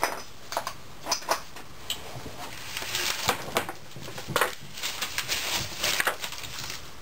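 Irregular metal clinks and knocks with stretches of scraping as a 4L80E transmission case is tipped and turned over on a workbench.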